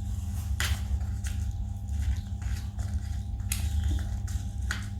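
Dry budgie seed food being mixed in its container, rattling and rustling in several short irregular bursts.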